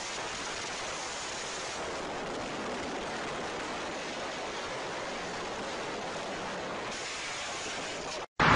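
Steady, even rushing hiss with no distinct engine note, voices or knocks; it cuts off suddenly near the end.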